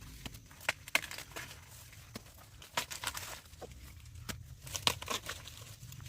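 Dry corn leaves and husks rustling and crinkling as corn is handled, with irregular sharp snaps and tearing sounds.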